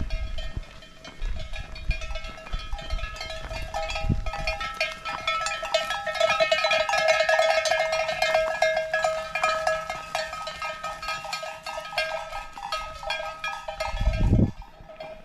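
Many livestock bells clanking and ringing together as a herd moves, loudest in the middle stretch. Two low thumps come in, about four seconds in and near the end.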